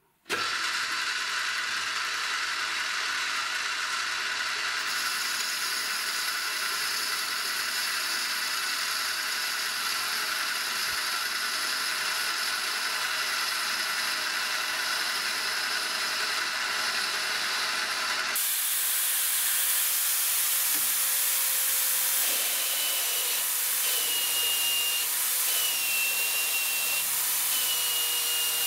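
Metal lathe running with a steady whine, its chuck spinning while a cutting tool turns a mild steel blank. About two thirds of the way in it gives way to a drill press, its twist drill boring into the steel disc with a hiss and a wavering high squeal.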